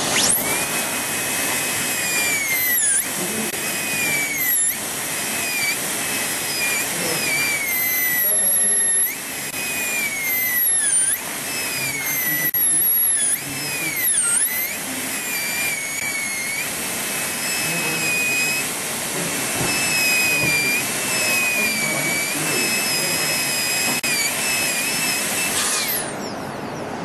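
High-speed air-turbine dental handpiece cutting a practice tooth with a bur, a steady high-pitched whine. Its pitch sags and recovers several times as the bur bears on the tooth under load. It stops about a second before the end.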